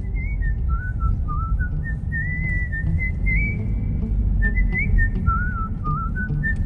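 A whistled melody of held, stepping notes over a steady low rumble.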